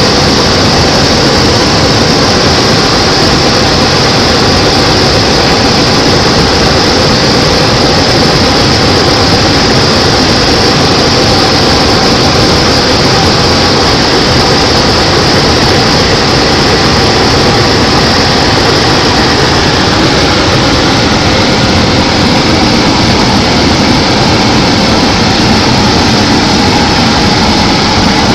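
Steady drone of a propeller aircraft's engine and airflow, heard inside the cockpit in flight.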